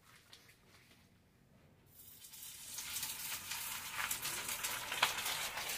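Breaded chicken empanada frying in hot oil: a sizzling hiss with crackles that starts about two seconds in and quickly builds to a steady level.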